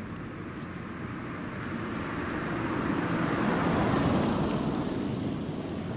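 A passing vehicle: a rushing noise that swells to a peak about four seconds in and then fades.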